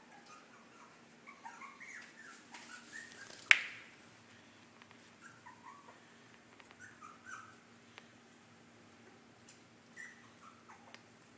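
Lhasa Apso and Yorkie puppies giving many short, high squeaks and whimpers as they run around, with one sharp knock about three and a half seconds in.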